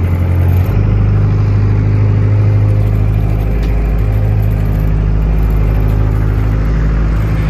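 Small ferry boat's engine running steadily under way, its pitch stepping up slightly about a second in.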